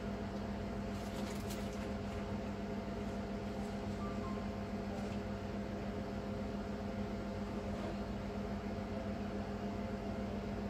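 Steady machine hum like a ventilation fan, with a constant low tone and fainter steady tones above it. A few faint clicks about a second in.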